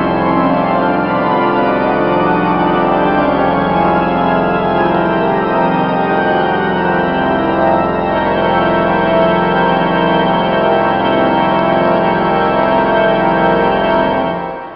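Church pipe organ playing long sustained chords, fading out near the end.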